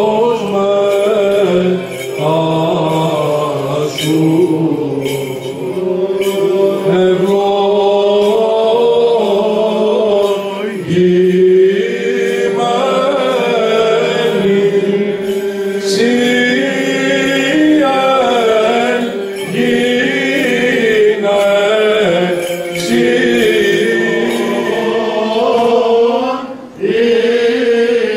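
Byzantine chant of a Greek Orthodox service: voices singing a slow, ornamented melody over a steady held drone note (the ison), with short pauses for breath between phrases.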